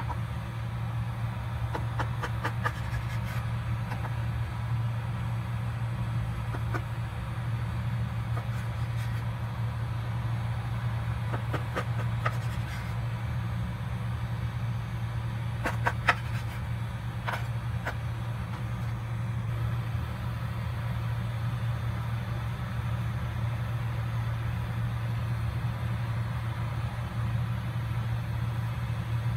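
Steady low machine hum throughout, with a few light clicks and taps of a knife and pastry pieces on a wooden cutting board, a small cluster about sixteen seconds in.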